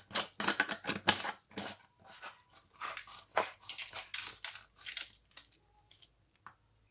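A red plastic screw cap being twisted tightly onto a plastic jar of olives, with the jars handled by a gloved hand: quick crackling and scraping ticks of plastic on plastic, dense for about five seconds and then thinning to a few.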